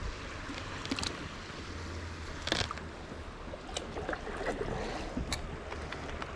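River water and wind around a small fishing boat, with a few short knocks and splashes.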